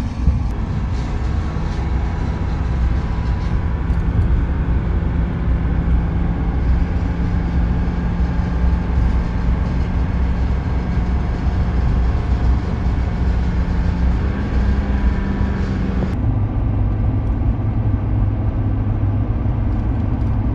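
Steady engine hum and road noise inside the cab of a moving truck. The engine's hum steps up slightly about fourteen seconds in. Then the sound changes abruptly to a lower, heavier highway drone.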